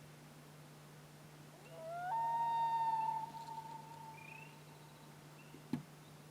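One long wailing animal call that rises in a step and then holds a steady high note for about two seconds before fading. Faint short bird chirps come before and after it, and a single sharp click sounds near the end.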